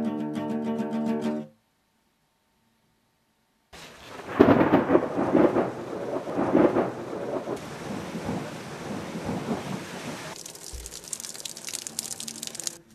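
A short stretch of guitar-like music ends about a second and a half in. After a brief silence, heavy rain with rolling thunder comes in, the thunder loudest in the first few seconds. The rain keeps hissing until it cuts off suddenly near the end.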